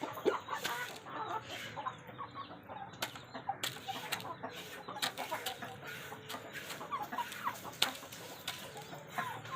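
Rooster clucking softly in short calls while it eats, with frequent sharp taps of its beak pecking at food.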